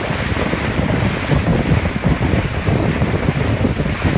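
Wind rumbling unevenly across the microphone over the steady rush of a moving boat's bow wave breaking through the water.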